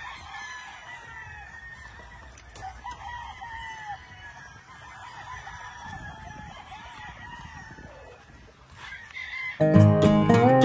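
Several gamefowl roosters crowing over one another, with some clucking. Acoustic guitar music comes in loudly and suddenly near the end.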